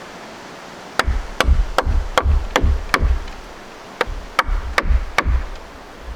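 Wooden baton striking the spine of a thick fixed-blade knife to split wood (batoning). There is a run of six sharp knocks, a bit more than two a second, then a short pause and four more.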